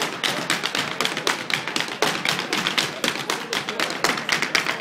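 Irish dancers' hard shoes striking a wooden floor in quick, rhythmic taps, several a second, from three dancers stepping together.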